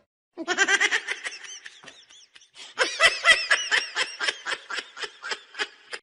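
High-pitched laughter in two bouts: a short one, then, about two and a half seconds in, a longer run of quick ha-ha pulses, about five a second.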